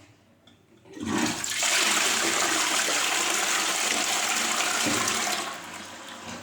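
Rushing water, loud and steady, starting abruptly about a second in with a brief gurgle and easing off near the end.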